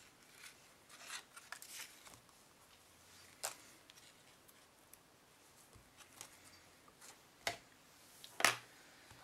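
Quiet handling sounds of a lace ribbon, elastic cord and paper craft tag being worked by hand, with scattered rustles and a few short sharp clicks.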